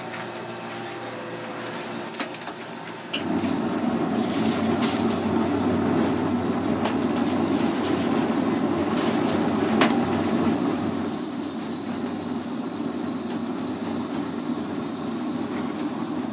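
Soft-serve ice cream machine running as a cone is filled: a steady mechanical rumble that starts suddenly about three seconds in, over a quieter hum, and eases a little past the middle.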